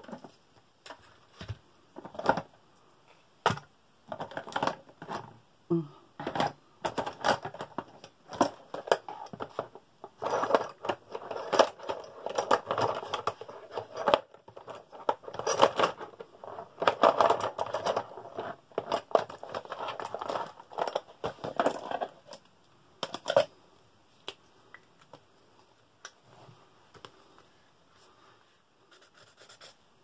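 Paper and craft materials being handled: a string of sharp taps and clicks, then bursts of scratching and rustling from about ten seconds in to about twenty-two, a last few clicks, then quiet.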